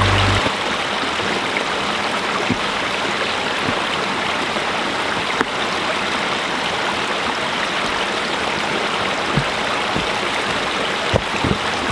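Small forest creek running over rocks, a steady rush of water. A few soft knocks near the end.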